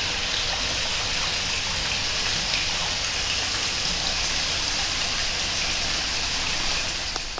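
Water spilling steadily over the stone rim of a pond in a thin, low cascade: an even splashing rush.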